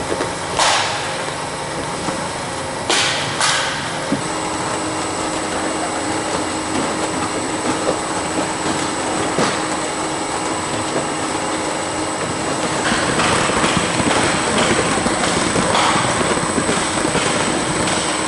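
NOVAGRAM+ fruit grading machine running on peaches: a steady mechanical clatter of the conveying line, with a few short noisy bursts in the first four seconds. A thin high whine sets in about four seconds in, and the clatter grows louder and denser from about two-thirds of the way through.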